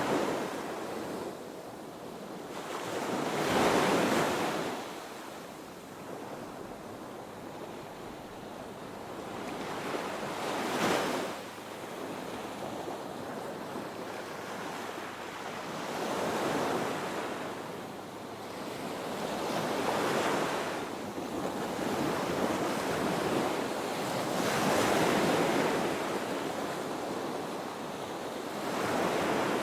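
Ocean surf breaking and washing up a beach: a continuous rush of water that swells into louder crashes every four to seven seconds and ebbs between them.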